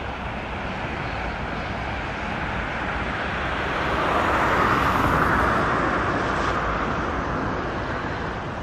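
A car passing on the road: tyre and engine noise rising to a peak about five seconds in, then fading away.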